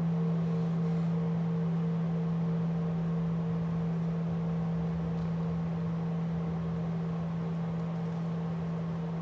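Large bowl-shaped standing temple bell ringing on after a strike, with no new stroke: a deep steady hum and a higher overtone that pulses, slowly fading.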